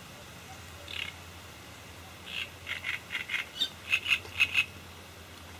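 A frog croaking at the pond: one short croak about a second in, then a quick run of about nine croaks, roughly four a second, the last few the loudest.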